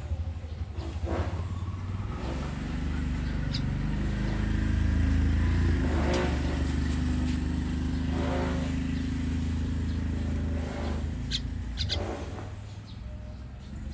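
A motor vehicle's engine passing by, its low hum swelling to a peak about five seconds in and fading near the end, with a few short pitched calls over it.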